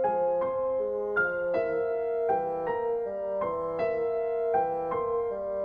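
Outro music: a gentle piano-like keyboard melody of single notes, a few a second, each ringing out as the next is played.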